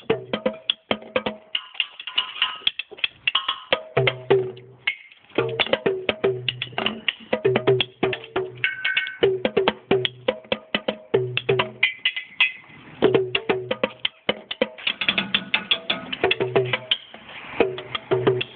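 Small drums worn on a belt, beaten with fast, irregular strikes. Two or three drum pitches recur among sharper, clicky hits, with brief pauses between runs.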